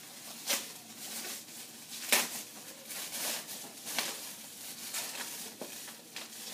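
Hands rustling crinkly packaging while unwrapping an item from a box: a run of irregular crackles, the sharpest about two seconds in.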